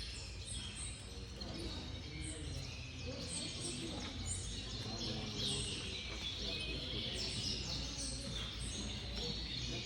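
Many Gloster canaries chirping and trilling in their show cages, short overlapping calls throughout, over a low steady hum and a faint murmur of voices.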